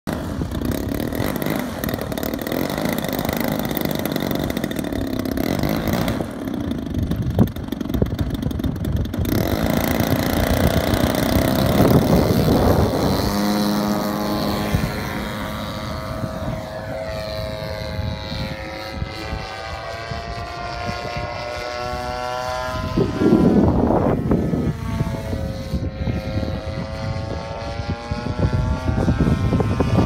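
Desert Aircraft DA-60 single-cylinder two-stroke petrol engine of a large radio-controlled Extra 300 aerobatic plane, running under throttle with its pitch rising and falling as the plane flies past. Wind buffets the microphone, with louder gusts about two-thirds of the way through and near the end.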